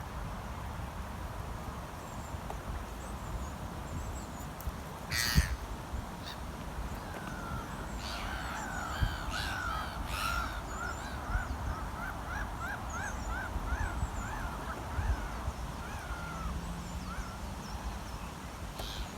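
Birds calling at a park pond. There is a loud harsh call about five seconds in, then a long run of quick, repeated calls through the middle, over a steady background rush.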